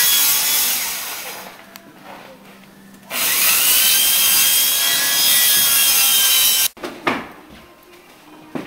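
Power saw cutting lumber in two long passes. The first fades out over the first second and a half. The second, about three and a half seconds long, has a whine that rises as it starts and then cuts off abruptly. A couple of short knocks follow near the end.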